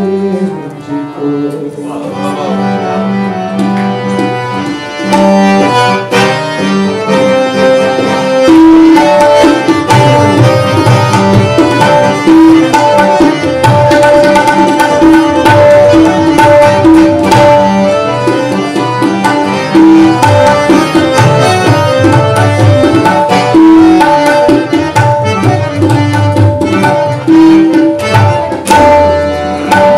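Instrumental interlude of a ghazal on harmonium and tabla. Harmonium notes are held over a light accompaniment at first; about eight seconds in, the tabla enters with a steady, busy rhythm and deep bayan strokes.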